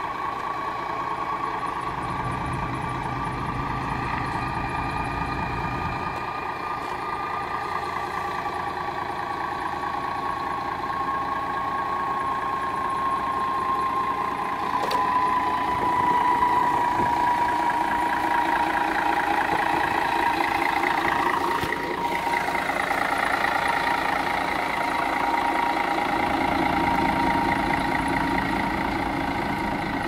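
Mercedes-Benz Citaro O530 LE bus's 12-litre OM457 hla diesel idling with its air intake removed, so the turbocharger's whine is heard openly over the engine's idle. The whine is steady and sinks slightly in pitch about halfway through.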